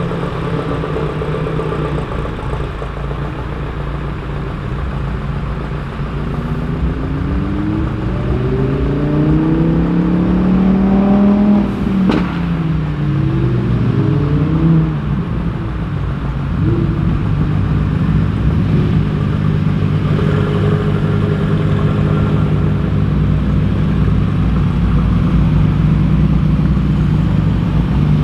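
Car engines running as cars drive off, with a steady low engine drone throughout. Halfway through, one engine revs up in a long rising note, then drops suddenly with a sharp crack and falls away before rising briefly again.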